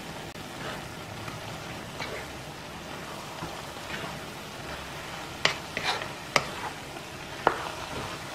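Diced Spam and vegetables sizzling in a frying pan while being stirred with a spatula, a steady hiss with a few sharp taps and scrapes of the spatula against the pan in the second half.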